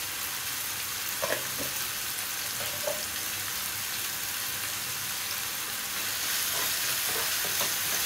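Chopped onion, tomato, sweet corn and zucchini pulp frying in oil in a non-stick pan, a steady sizzle. It grows a little louder near the end as the vegetables are stirred.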